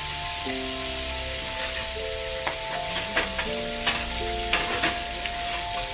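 Frying sizzle from a wok over a charcoal stove, a steady hiss with a few sharp clicks in the middle seconds. Soft background music with held notes plays under it.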